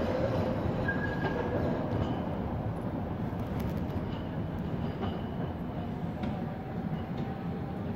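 Tram running on street tracks: a steady low rumble with faint thin whines coming and going.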